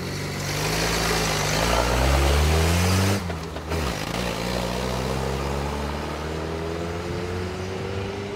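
Suzuki off-roader's engine revving and climbing in pitch as it pulls away. After a break about three seconds in, its engine runs on with a slowly rising pitch as it drives off.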